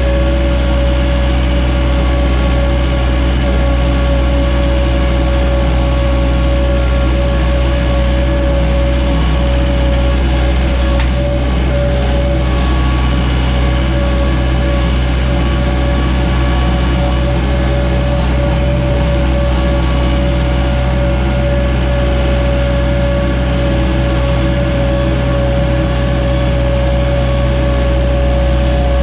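Case/Davis D100 backhoe's engine running steadily, with a constant low drone and a steady mid-pitched tone over it.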